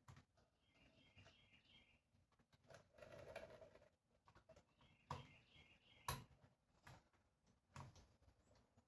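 Near silence, with a few light clicks and knocks of chainsaw air filter kit parts being handled, the sharpest about six seconds in, and faint bird chirps in the background.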